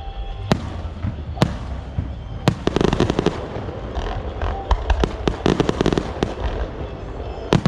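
Aerial fireworks going off: a few single sharp bangs, then clusters of rapid crackling bursts about three seconds in and again near six seconds.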